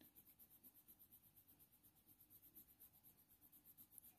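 Very faint strokes of a white Faber-Castell Polychromos colour pencil on hot-press watercolour paper, a few soft small ticks, otherwise near silence.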